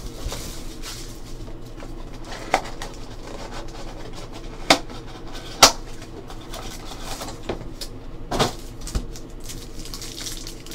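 Hands opening a cardboard box of trading cards and taking out the packs: cardboard rustling and scraping, with several sharp clicks, the loudest two near the middle.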